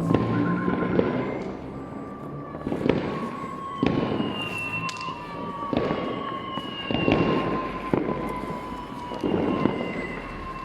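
City-wide New Year fireworks bursting and cracking, with booms every second or two over a continuous rumble of more distant bangs. A thin steady high tone and a few short whistles run underneath.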